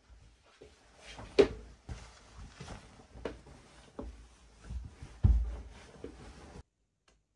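Bedding being handled on a mattress: a cotton sheet and a thick mattress topper rustling and flapping as they are spread out and smoothed, with several sharp flaps and soft thumps, the loudest flap about a second and a half in and a heavy thump about five seconds in. The sound cuts off abruptly about a second before the end.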